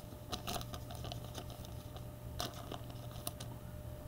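Trading cards and a foil pack wrapper being handled: scattered light clicks and rustles, with a sharper click about two and a half seconds in.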